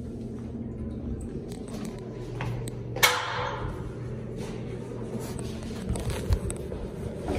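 Steady low hum of a tiled restroom, broken about three seconds in by one sharp clack with a short ringing tail, and a couple of dull thumps near the end.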